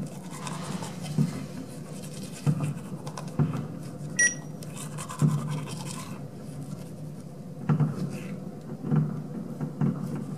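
Distant fireworks shells bursting: about eight low booms at irregular intervals. A short electronic beep sounds about four seconds in, over a faint steady hum.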